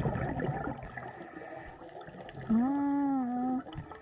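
Underwater audio from a scuba dive: a crackling, bubbling background of the regulator's exhaust bubbles. About two and a half seconds in, a single hum-like tone rises and then holds for about a second before stopping.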